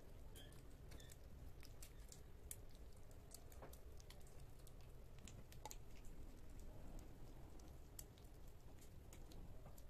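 Kittens eating wet cat food from a plate: faint, irregular little clicks of lapping and chewing.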